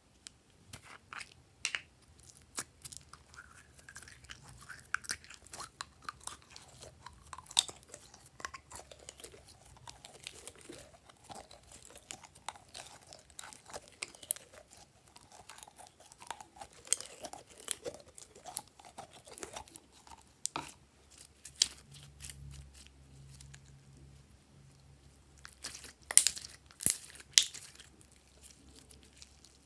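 Glossy slime being mixed and squeezed by hand, giving wet squelches and irregular sticky clicks and crackles, with a run of louder clicks near the end.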